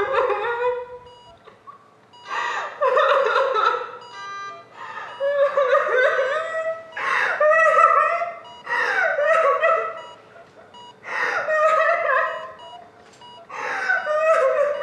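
A woman crying hard: high, wavering sobs in about seven outbursts of a second or so each, with short catching breaths between them.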